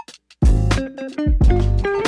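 Background music with guitar, bass and drums, breaking off briefly at the start and coming back in with a beat about half a second in.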